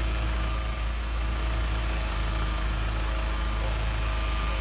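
Fire truck's engine idling with a steady low hum.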